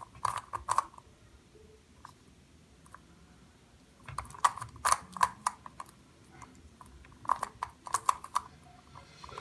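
Yuxin 8 Petals twisty puzzle being turned by hand: three quick runs of plastic clicks as its strongly magnetized pieces snap into place, near the start, around the middle and near the end.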